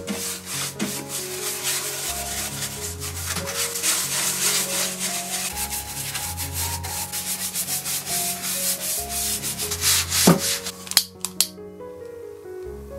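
Stiff bristle brush rubbing quickly back and forth over a wooden furniture frame, brushing on a finish, in rapid scratchy strokes over background music. Near the end the brushing stops and a few sharp clicks follow.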